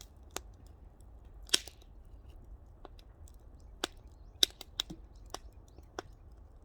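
Wood fire crackling: sharp pops and cracks from the burning firewood at irregular intervals, about one or two a second, over a low steady rumble.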